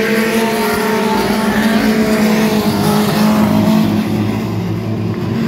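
Mini stock race car's four-cylinder engine running at a steady pitch as it laps the dirt oval, the note barely rising or falling.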